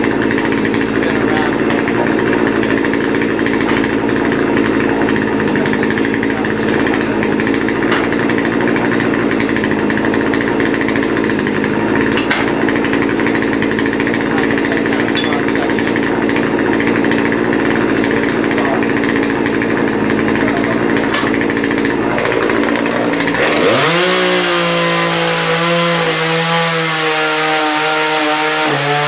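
Gas chainsaw running at a steady low speed, then revved up quickly about 23 seconds in and held at high speed.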